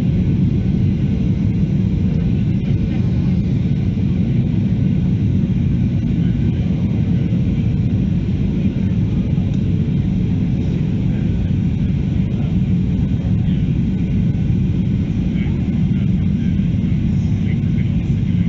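Steady low rumble of a Boeing 737-800's CFM56-7B turbofan engines and slipstream, heard inside the cabin beside the wing in flight, with a faint steady hum above it.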